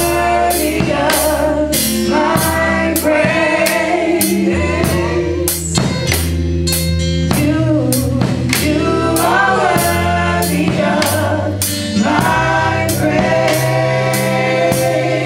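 Gospel choir singing with a live band: a drum kit keeps a steady beat with cymbal strokes about twice a second, over sustained low keyboard notes.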